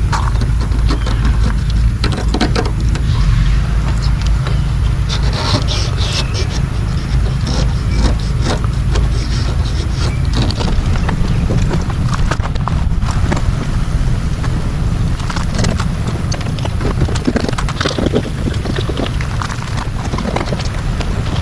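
Razor blade scraping loose, peeling clear coat off a car hood in repeated short strokes, over a steady low rumble.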